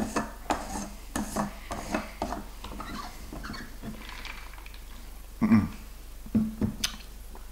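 A plastic tumbler cup with ice being handled and set down: a run of small clicks and knocks. Near the end come two short vocal sounds, like hums.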